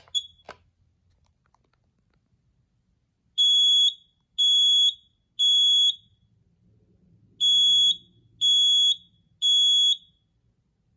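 Kidde 900-CUDR battery-operated smoke and carbon monoxide alarm sounding on test: two rounds of three loud, high-pitched beeps, each about half a second long. This is the temporal-three pattern that signals smoke.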